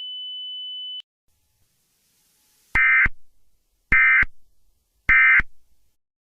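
A steady high electronic tone that cuts off about a second in, then three short buzzy data bursts about a second apart: the Emergency Alert System end-of-message (EOM) data bursts that close an alert.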